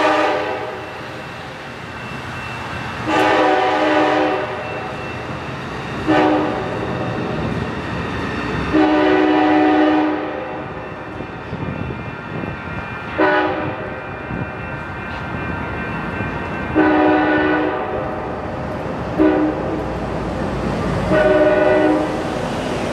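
Amtrak train's locomotive horn sounding a series of grade-crossing warning blasts as the train runs along street track, about eight chord-like blasts a few seconds apart, some long and some short, over the train's low running rumble.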